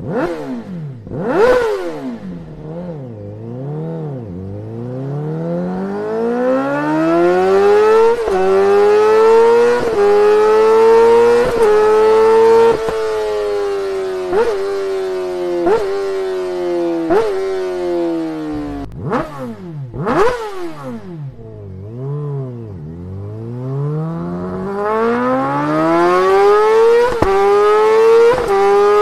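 Honda CBR1000RR-R Fireblade SP's inline-four engine revving hard through its exhaust: the pitch climbs in steps as it pulls through several gears, then falls with quick throttle blips. After a short break it rises again near the end.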